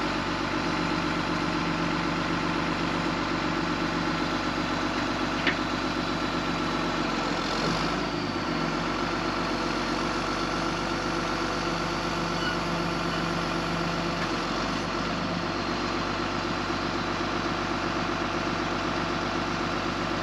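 Flatbed rollback tow truck's engine idling steadily, with one sharp click about five seconds in.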